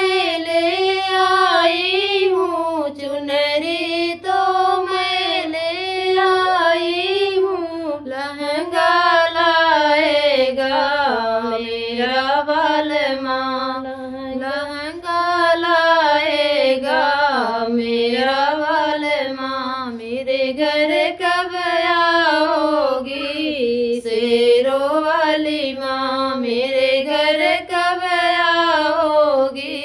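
Two women singing a Hindi devi bhajan (devotional song to the goddess Sherawali Maa) together on one melody line, unaccompanied, with long, wavering held notes.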